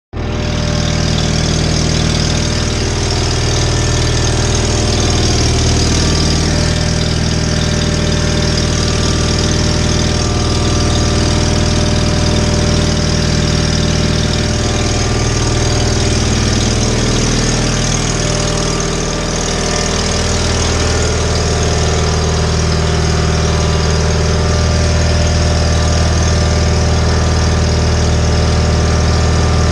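John Deere 318 garden tractor's two-cylinder Onan engine running steadily, its low note briefly shifting and dipping about two-thirds of the way through before settling again.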